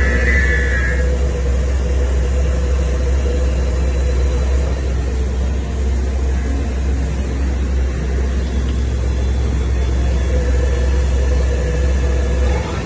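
Chiron FZ 08 S CNC vertical machining centre running, with a steady low hum and a steady mid-pitched tone. A brief higher whine sounds in the first second.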